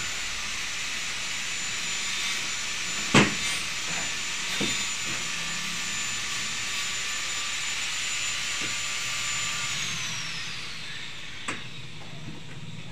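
A power tool's motor running with a steady whine and hiss, then winding down in pitch about ten seconds in. A few sharp metal clanks as steel tubes are handled, the loudest about three seconds in.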